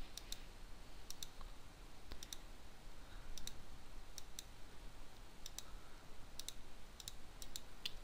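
Computer mouse buttons clicking faintly, about ten short clicks, many in quick press-and-release pairs, spaced irregularly.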